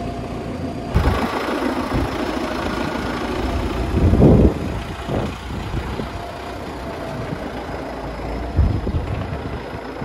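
Farm tractor's diesel engine running, with a brief louder burst about four seconds in.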